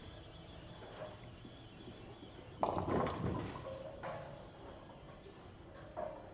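A bowling ball crashes into the pins about two and a half seconds in, followed by about a second of pins clattering, with a couple of lighter knocks after, over a steady bowling-alley background hum.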